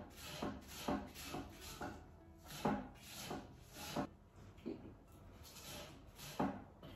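A small hand-held shredding tool drawn along a spring onion on a wooden cutting board, cutting it into thin strips: a dozen or so short scraping strokes, each with a light knock on the board, at an uneven pace.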